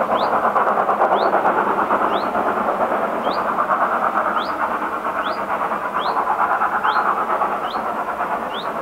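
LSWR Urie S15 4-6-0 steam locomotive No. 506 working hard up a 1 in 60 gradient, its exhaust beats coming fast and steady and slowly fading over the last few seconds. A short high rising squeak repeats about once a second over it.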